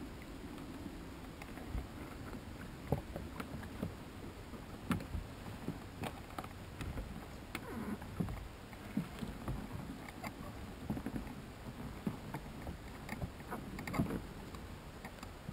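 A small boat being paddled: paddle strokes in the water with irregular knocks and clicks, over a steady low rush.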